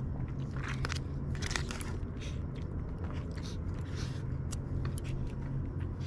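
A person chewing and biting into grilled frog close to the microphone, irregular short mouth sounds over a steady low hum.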